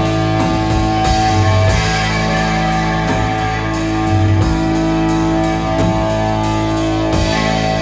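Live recording of a psychedelic rock band: long held notes over drums, with cymbal strikes at a steady pulse.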